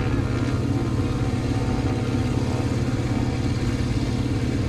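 Propeller aircraft's piston engine idling steadily on the ground, with a fast, even pulsing throb.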